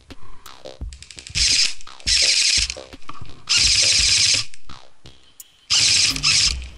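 Airsoft electric guns firing on full auto, several short bursts of fast, buzzing shots, each about half a second to a second long, the longest near the middle.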